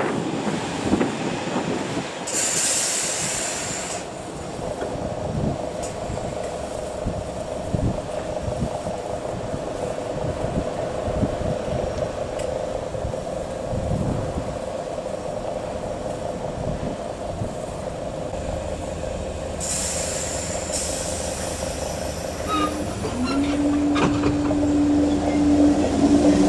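A train running past, its wheels clicking over rail joints under a steady hum. Two short bursts of hiss come about two seconds in and again about twenty seconds in. Near the end a new steady tone comes in.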